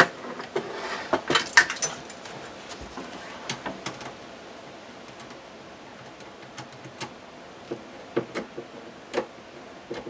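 Small clicks and scrapes of a hand tool and fixture parts while the screw of a cable connector on an LED under-cabinet light is tightened by hand. A cluster of louder clicks comes in the first two seconds, then faint single ticks now and then.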